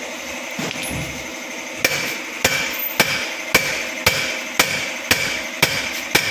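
Hammer blows on the metal of a propeller shaft at its universal (star) joint, struck at a steady pace of about two a second starting about two seconds in, each blow with a short ringing.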